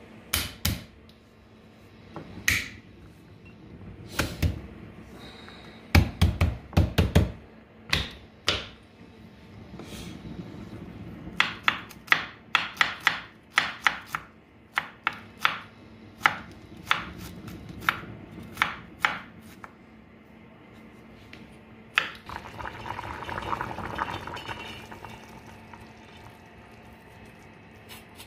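Chef's knife chopping garlic cloves on a wooden cutting board: scattered knocks, a quick run of strokes about six seconds in, then a stretch of steady chopping. Later a few seconds of softer rushing noise.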